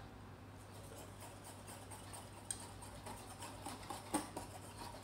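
Wire whisk stirring a thin chickpea-flour batter in a ceramic bowl: faint, irregular light ticks as the wires touch the bowl, coming more often in the second half.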